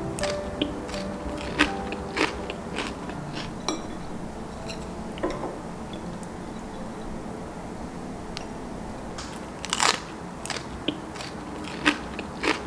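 Crisp shredded-potato pancake crackling and crunching as chopsticks pull it apart on a plate, in scattered sharp crackles. A louder cluster comes about ten seconds in and another near the end.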